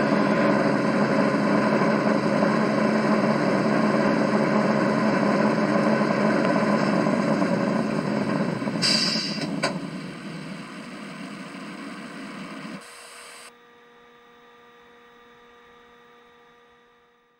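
Simulated truck diesel engine idling, played by the model truck's Das Mikro TBS Mini sound module through its small speakers. A short hiss comes about nine seconds in, then the engine sound gets quieter and stops about thirteen seconds in, leaving a faint hum that fades out.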